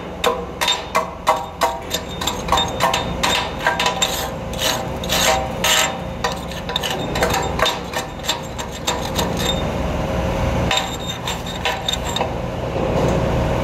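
Chipping hammer knocking slag off a flux-core weld on a steel gusset plate: sharp metallic strikes about three a second, with the steel ringing, growing sparser in the last few seconds.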